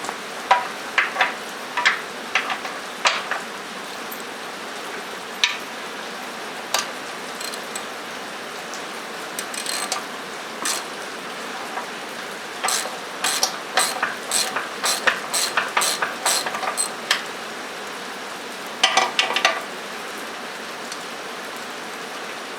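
Hand ratchet wrench clicking in short bursts as the idler arm bolts are turned loose, over the steady patter of rain on a metal roof.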